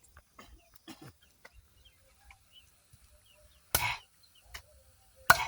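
Chopping goat meat: a run of sharp strikes, with two heavy blows in the second half. Chickens cluck in between.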